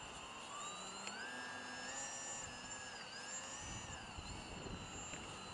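Faint whine of an RC foam delta-wing plane's motor and propeller in flight. Its pitch rises about half a second in, dips briefly around the three-second mark, then falls away near the end.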